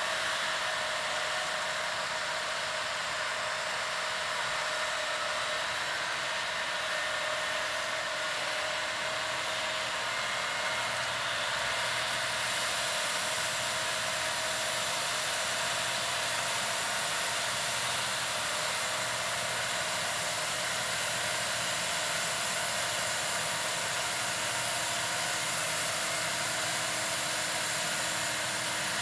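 New Holland T7.290 tractor's six-cylinder diesel running steadily under load while pulling a Horsch Serto seed drill, a constant whine over a broad hiss. The hiss grows brighter about twelve seconds in as the rig draws nearer.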